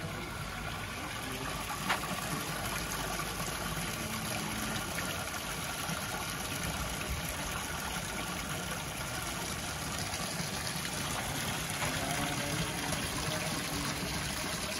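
Steady outdoor town-street noise, an even hiss-like wash, with one sharp click about two seconds in.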